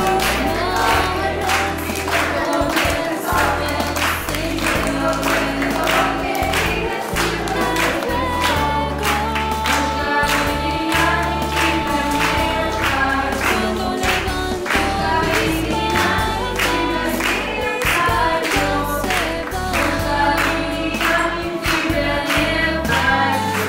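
A Christian worship song sung by a group of women on microphones through a PA, with a steady beat and bass.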